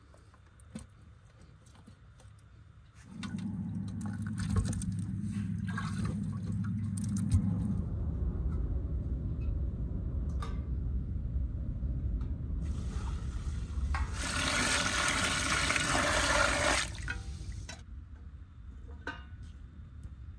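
Water poured into a large steel stockpot of boiled beef legs, filling it for a second boil. The pouring starts about three seconds in and turns louder and splashier a few seconds before the end, then stops abruptly.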